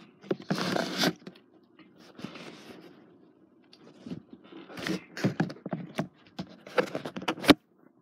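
Handling noise: scraping and rustling, with a run of sharp clicks and knocks in the second half and one sharp click near the end.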